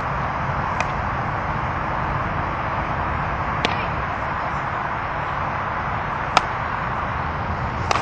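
Steady rushing outdoor noise on the microphone, with four sharp knocks spaced a couple of seconds apart, the third the loudest.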